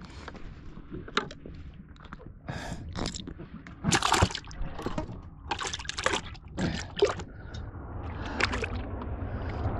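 Water splashing and sloshing in a string of short, irregular splashes, the loudest about four seconds in.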